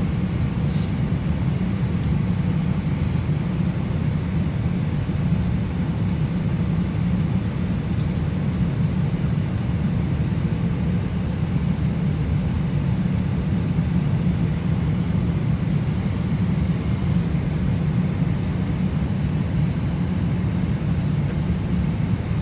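Steady low rumble inside an airplane cabin in flight, even and unbroken.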